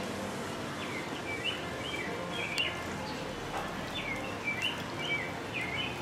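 A bird chirping in two runs of short, quick chirps, the second run starting about four seconds in, over a steady background hum.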